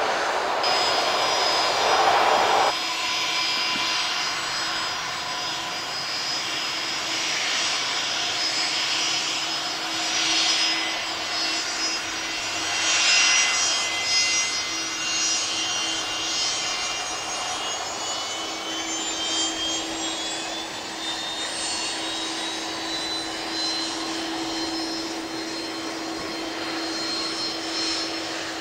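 Turbofan engines of taxiing jet airliners whining steadily: a Boeing 737 at the start, then a Fokker 70's Rolls-Royce Tay engines. Several whine tones rise slowly in pitch over the last ten seconds.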